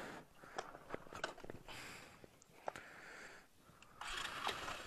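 Footsteps crunching on loose gravel and broken stones, with a few sharp clicks of rock knocking on rock as stones are shifted and set into place on the rough track.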